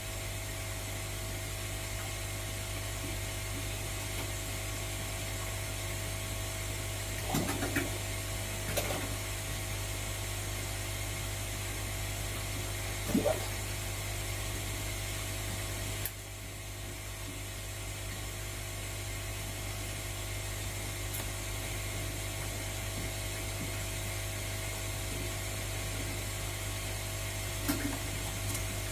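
Steady mechanical hum, with a few short knocks and clicks at intervals.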